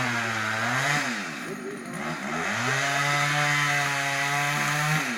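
Two-stroke chainsaw running at high revs; the engine note drops and climbs back about a second in, then holds steady and drops again near the end.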